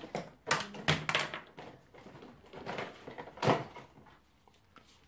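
Gloved hands handling a brake pipe and string: a few short rustles and scrapes, the loudest about half a second, one second and three and a half seconds in.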